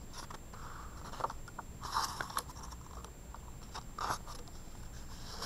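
Pages of a paperback picture book being turned and handled: soft paper rustling, with two louder swishes about two and four seconds in.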